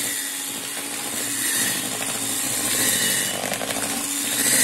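Handheld electric mixer running steadily, its twin beaters whipping egg whites and sugar into meringue that is already thick and white.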